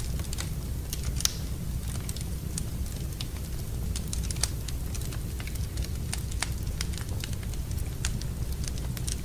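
Wood fire crackling in a fireplace: irregular sharp pops and snaps over a steady low rumble of the flames, with a louder pop about a second in.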